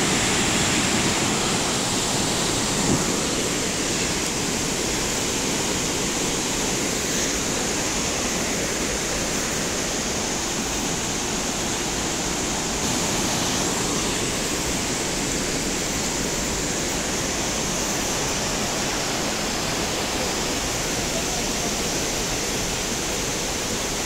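Whitewater mountain stream cascading over rocks: a steady, unbroken rush of water.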